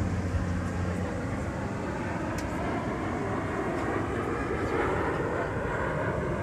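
Distant jet noise from a Blue Angels F/A-18 Hornet flying high overhead: a steady rushing sound that holds at an even level.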